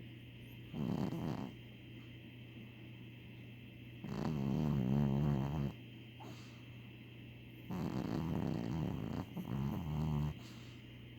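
A Chihuahua snoring in his sleep: three snores, a short one about a second in, then two longer ones.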